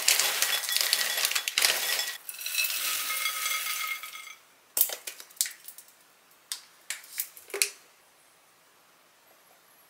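Puffed beans pouring from a plastic bag into a glass bowl, a dense rattling patter, then tipped from the glass bowl into a larger bowl with the glass ringing faintly. The pouring stops about four seconds in, and a few light knocks of bowls and a bottle being handled follow.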